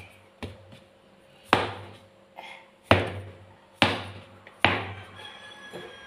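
A Chinese cleaver chopping through soft bread dough into a wooden cutting board: four sharp knocks about a second apart, with a lighter one near the start.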